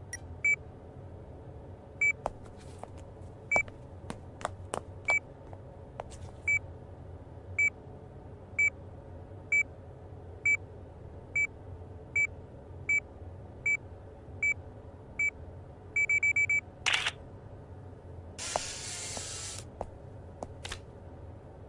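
Camera self-timer beeping: single beeps that speed up into a rapid string, then the shutter fires about seventeen seconds in, followed by a whir of about a second as the instant photo feeds out. A few handling clicks come early on as the camera is set.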